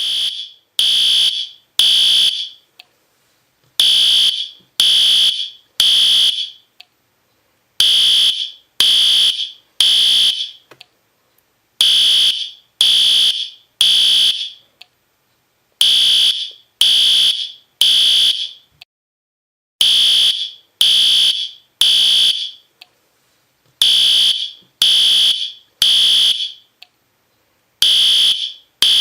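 Fire alarm sensor sounding a loud, high-pitched electronic beep in groups of three, about one beep a second, with a pause after each group. This is the temporal-three evacuation pattern that signals a fire alarm.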